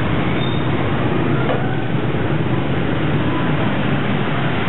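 Small petrol engine of a walk-behind concrete cutter running steadily.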